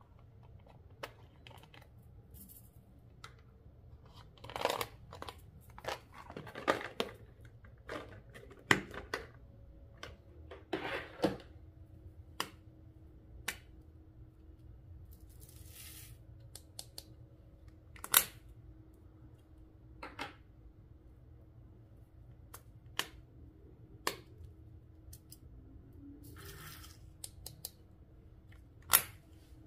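Slime being handled and mixed by hand: irregular sticky pops and clicks, a few of them sharp and loud, with a couple of short crinkly rustles.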